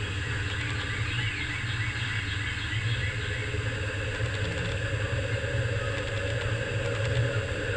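Steady low mechanical hum with a faint even hiss over it, unchanging throughout.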